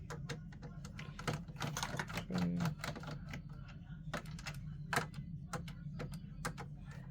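Irregular light clicks and taps of a screwdriver and small screws against the PS5's casing and parts as screws are worked out by hand.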